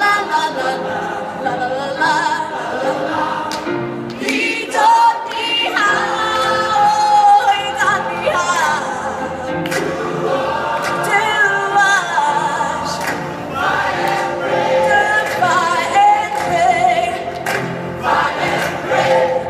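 A group of voices singing a song together, choir-style.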